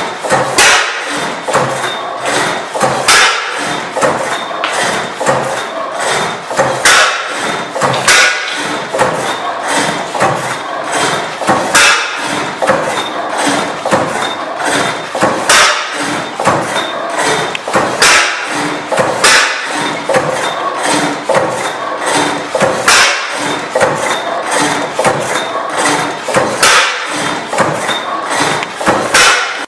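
Old Benz & Co. stationary gas engine running: a continuous run of mechanical knocks and clatter, with a heavier knock every few seconds.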